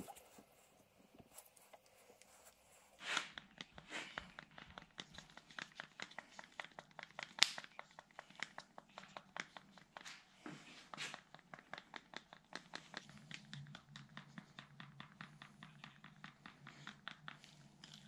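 Wooden stir stick scraping and knocking around the inside of a plastic cup, mixing two-part epoxy: a quick, uneven run of soft clicks and scrapes, several a second, starting about three seconds in. A single knock right at the start comes from the pump dispenser.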